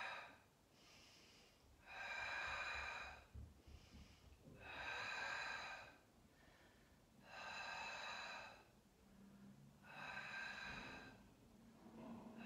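A woman breathing audibly through the mouth in a slow, even rhythm, a long breath about every two and a half seconds. This is paced exercise breathing, matched to the movements of a Pilates double leg stretch.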